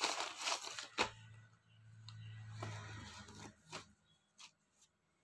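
Clear plastic packaging crinkling as folded cloth is pulled out of it, ending in a soft knock about a second in. A faint low hum and a few light ticks of the fabric being handled follow, then it goes quiet.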